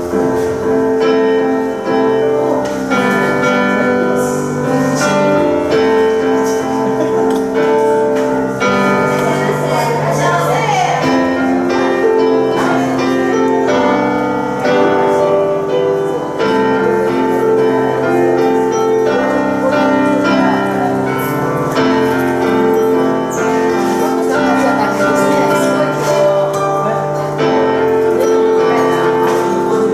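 Grand piano played in a slow improvisation, full chords held and changing every second or two.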